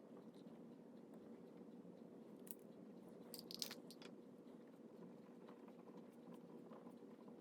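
Near silence: room tone with a faint steady hum, and a few faint short clicks and scratchy sounds around the middle.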